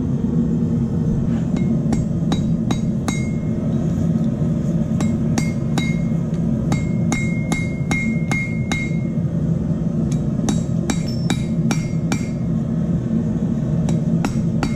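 Hand hammer forging a small steel crossbow-bolt head held in needle-nose pliers on a railroad-track anvil: a quick, uneven run of blows, some ringing with a clear high note. A steady low hum runs underneath.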